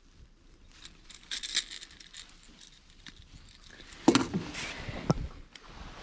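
Handling noise while unhooking a landed bass: faint rustling and light clicks, then a sharper knock about four seconds in and another click about a second later.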